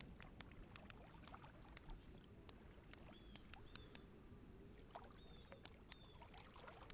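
Near silence: a faint outdoor background with scattered small, sharp clicks and a few faint, short, high chirps.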